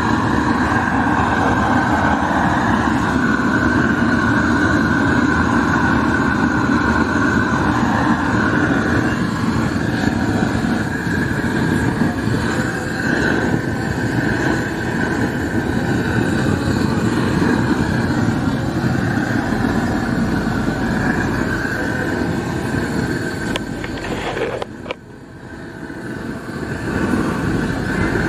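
LPG gas torch running steadily, its flame played over a steel bicycle frame to burn the paint off. Near the end the sound drops sharply for a moment with a click, then builds back up.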